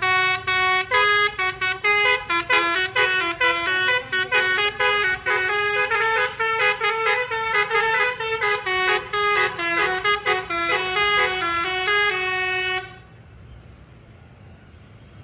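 Bus 'telolet basuri' musical air horn playing a quick tune. It starts with a run of short toots, moves into smoother phrases of changing notes, and cuts off abruptly about thirteen seconds in.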